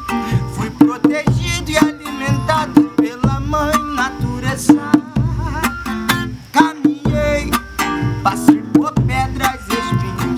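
Acoustic music on plucked strings, played in a steady rhythm.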